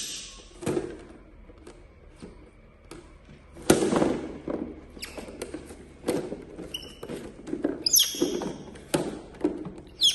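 Scattered taps and knocks, with a pet monkey's short, high, falling squeaks: one at the start, one about eight seconds in and one near the end.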